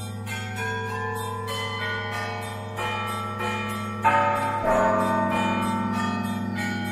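Greek Orthodox church bells ringing for vespers: several bells struck over and over, their tones overlapping and ringing on, with a louder strike about four seconds in.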